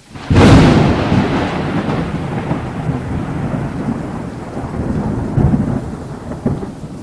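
Thunder from a close lightning strike: a sudden loud crack about a third of a second in, then a long rolling rumble that slowly fades, with rain falling underneath.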